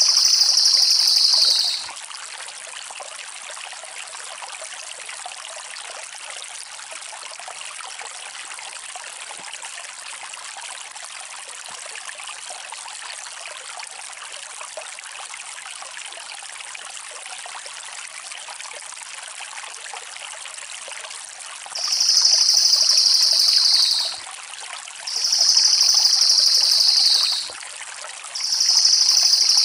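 Crested jay (cililin) giving a fast, shrill rolling trill, each run about two seconds long and dropping slightly in pitch at its end: once at the start and three times near the end. Under it runs a steady sound of a flowing stream.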